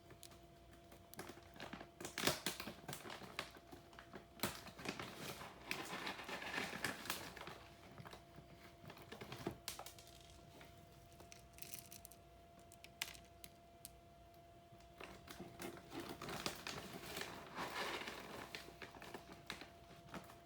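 Hamster eating close to the microphone: bursts of crisp crinkling and clicking, with pauses in between, over a faint steady hum.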